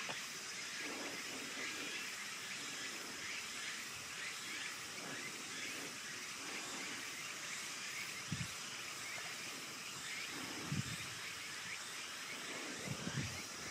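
Outdoor ambience: a steady hiss with many faint, short, high chirps, broken by three brief low thumps in the second half.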